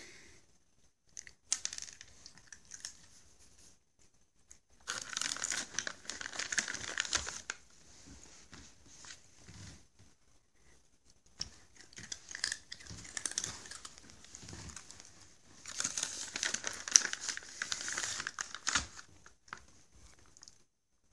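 A crinkly treat packet being rustled and crumpled by hand, in four bouts of crackling a few seconds each with pauses between.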